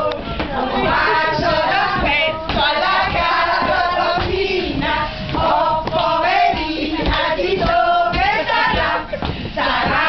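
A group of people singing together loudly, several voices overlapping.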